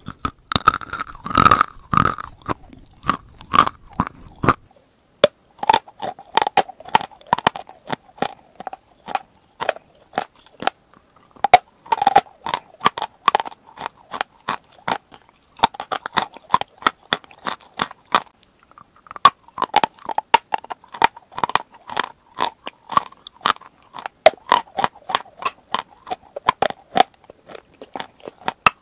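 Close-miked biting and chewing of edible chalk: dense, sharp crunches and crackles in quick succession. The sound changes character about four and a half seconds in, and there is a brief lull a little past the middle.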